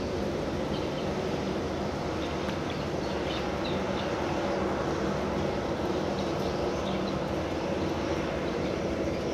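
Steady low drone of a passing tanker's engines, with faint bird chirps now and then.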